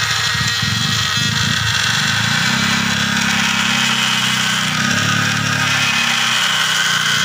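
Electric rotary grinder with a burr bit running continuously as it cuts and trims an opening in a black plastic motorcycle headlight cowling. Its motor whine shifts in pitch a few times as the bit is pressed into the plastic.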